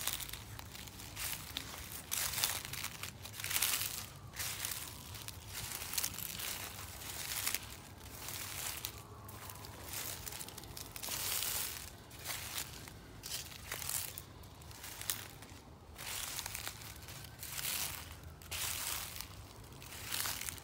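Footsteps crunching through dry fallen leaves on the forest floor, a steady walking pace of about one step a second.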